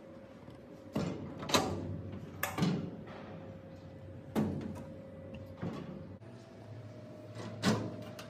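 Knocks and clunks of a cabinet's glass door and its hardware being worked by hand: about seven sharp knocks, spread irregularly over several seconds, the loudest about a second and a half in and again near the end.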